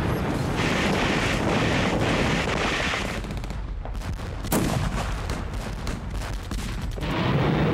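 Battle gunfire: rapid rifle and machine-gun shots, with one sharp, louder shot about four and a half seconds in. A low steady drone comes in near the end.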